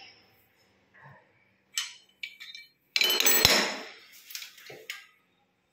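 Hard metal clinks and a clatter from a steel pipe wrench being handled and put down after tightening a tap extension piece: a few light clicks, then a loud ringing clatter about three seconds in, followed by a few smaller knocks.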